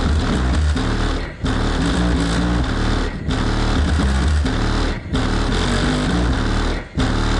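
Bass-heavy music played very loud through a car audio system with an EarthQuake Magma 15-inch subwoofer, heard from outside the car. It has heavy, shifting low bass and a dense, harsh upper layer, and it dips sharply in level about every two seconds.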